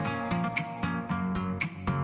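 Background music led by plucked guitar, notes struck at a steady pulse.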